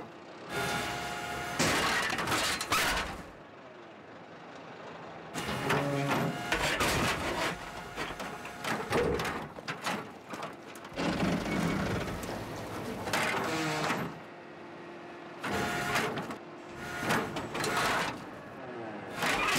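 Excavator engine and hydraulics whirring, broken by repeated loud crashes and crunching as the bucket smashes and lifts a bus bench.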